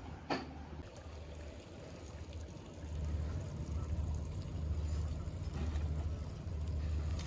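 Wind buffeting the microphone outdoors: a low, uneven rumble that grows stronger about three seconds in, with a single sharp click near the start.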